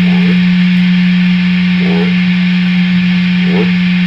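Loud, steady electrical hum and hiss from a Marshall DSL 40C guitar amp with nothing being played: 60-cycle mains hum, still passing because the noise gate is not yet cutting it.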